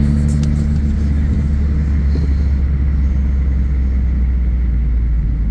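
A moving car's engine and road noise heard from inside the cabin: a steady low drone.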